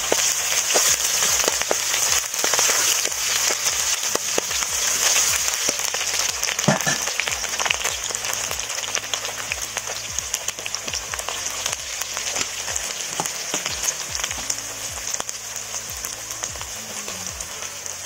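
Sliced onions sizzling and crackling in hot oil in a kadai, loudest at first and slowly dying down.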